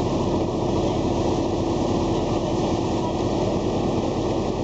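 Boat engine running steadily under way: a constant hum over an even rush of noise.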